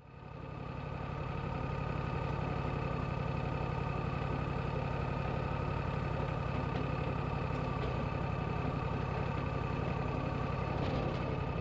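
Wood-Mizer LT40 sawmill's engine running at a steady speed, with an even fast low pulse and a few steady higher tones over it.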